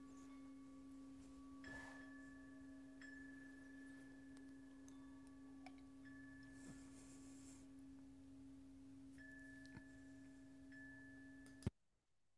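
Faint, steady pure tone from a sound-healing instrument ringing on, with a fainter higher tone coming and going over it. It stops abruptly with a click near the end.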